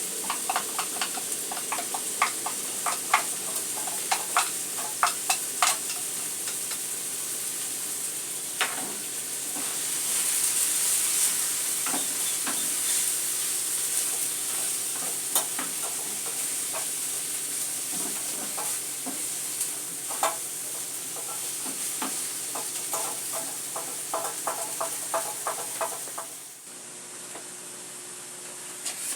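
Food sizzling in a frying pan, with a utensil clicking and scraping against the pan at irregular moments. The sizzle cuts off suddenly near the end.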